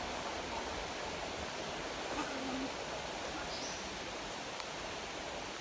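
Steady rush of water from a nearby waterfall and its stream.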